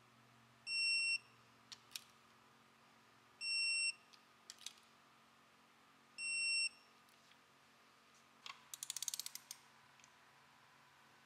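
Snap-on electronic torque wrench beeping three times, each a half-second tone about three seconds apart, signalling that each cam sprocket bolt has reached its set torque. Light tool clicks come between the beeps, and near the end there is a quick run of ratchet clicks.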